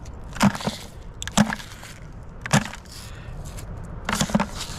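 Footsteps walking over grass and gravel, a dull thud about once a second.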